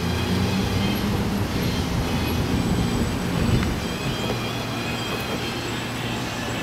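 Low, steady rumble of a passing vehicle, swelling slightly about three and a half seconds in.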